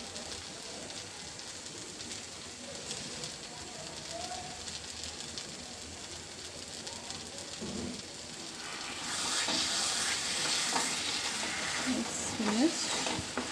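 Thick taro-flower and hilsa curry sizzling in a frying pan. About nine seconds in, the sizzle gets louder and brighter as a spatula stirs the mixture through, with light scraping clicks.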